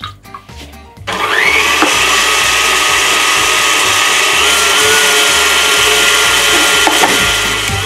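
KitchenAid stand mixer switched on about a second in, its motor whining up to speed and then running steadily as the wire whisk whips egg whites with sugar at moderate speed. The whine steps slightly higher midway and the sound drops off near the end.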